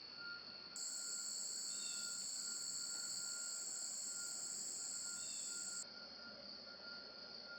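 Crickets and other insects singing: a steady high-pitched trill, with a lower chirp repeating about twice a second.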